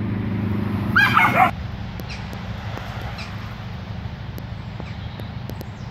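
A dog gives one short, high yelp about a second in, over a steady low rumble.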